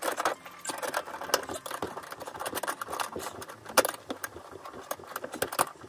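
Pliers gripping and turning a brass threaded adapter as it is tightened onto a washing machine shut-off valve: irregular metal clicks and scrapes, with one louder click a little before the four-second mark.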